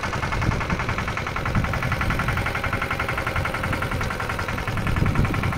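Pasquali 946 two-wheel tractor's single-cylinder, air-cooled Lombardini LDA96 diesel running steadily as the tractor works the soil, with a fast, even beat.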